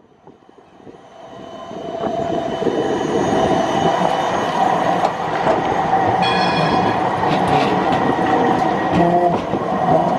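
Siemens Combino tram rolling close by on a curve, growing louder over the first couple of seconds into a steady rumble with the wheels squealing against the curved rails. A brief higher-pitched squeal comes about six seconds in, and a few clacks follow as the wheels cross track joints.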